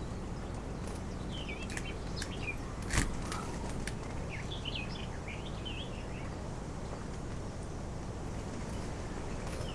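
Birds chirping now and then over steady low background noise, with one sharp click about three seconds in.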